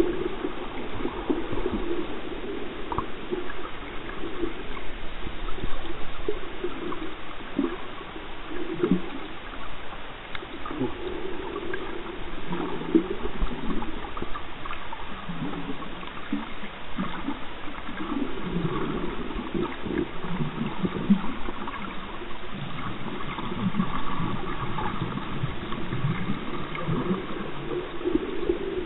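Underwater water noise picked up by a camera in its housing: continuous, irregular gurgling and sloshing with a few faint ticks.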